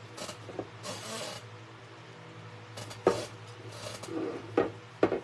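Short scrapes and light knocks from a paintbrush and craft tools being handled on a work table, over a steady low hum.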